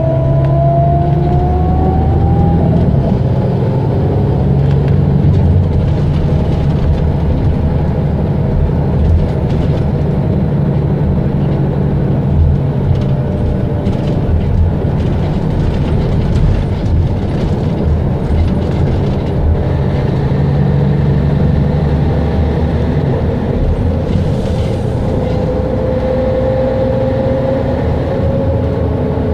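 Mercedes-Benz O 550 Integro bus's diesel engine running steadily under way, with the whine of its ZF Ecomat five-speed automatic gearbox rising in pitch over the first few seconds and again near the end as the bus gathers speed.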